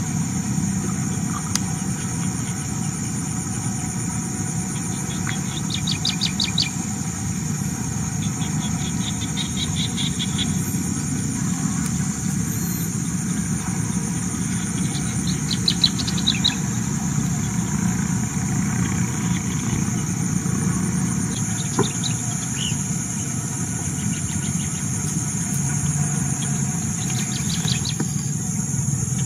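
Forest ambience: a steady high-pitched insect drone, with short clusters of bird chirps every few seconds, over a constant low rumble.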